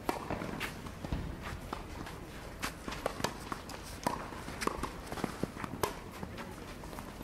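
Tennis balls struck by racquets and bouncing on a clay court in a rally: irregular sharp pops, about two a second, with players' footsteps on the clay.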